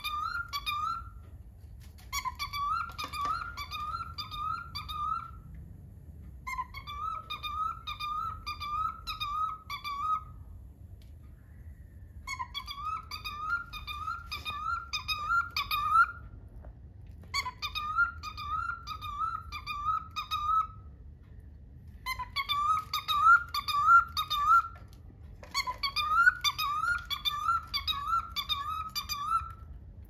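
Cockatiel chirping: a run of quick, wavering high chirps, given as phrases of about three seconds separated by short pauses, repeated about seven times.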